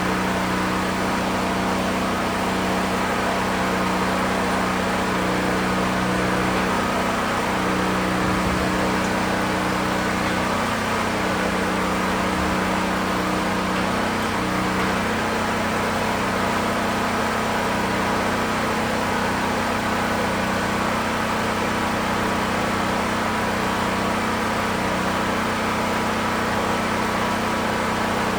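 An engine running steadily, a constant hum with slight shifts in pitch now and then.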